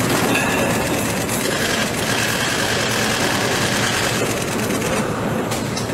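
Subway train running through the station: a steady rail rumble and clatter, with a high steady whine through the middle.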